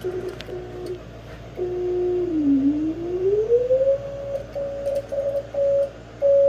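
Keyed Morse code (CW) note of a homebrew twin-4CX250B linear amplifier on 10 meters, heard as a steady beat tone from a monitoring receiver: dashes and dots at a low pitch, then the pitch dips and glides up about halfway through and the keying goes on at a higher pitch. The note is clean, without the buzz that a parasitic oscillation had caused before new brass parasitic chokes were fitted.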